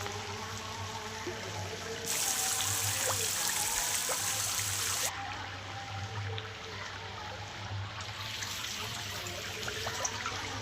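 Water trickling and splashing, with a louder hissing rush for about three seconds starting about two seconds in.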